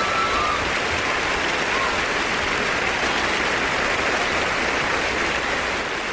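A large theatre audience applauding steadily, a dense even clapping.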